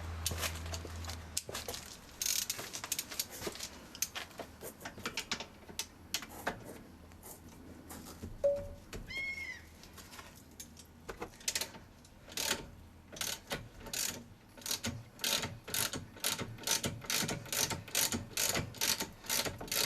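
Hand ratchet wrench undoing the rear strut bolt: the pawl clicks irregularly at first, then settles into a steady run of about two to three clicks a second. A brief squeak comes about halfway through.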